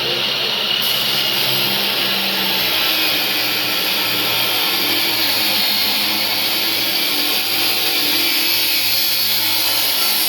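Power cut-off saw running with its blade cutting through the clamped stock: a steady, loud grinding whine over the motor's hum. The high hiss of the cut comes in about a second in and stops sharply at the end.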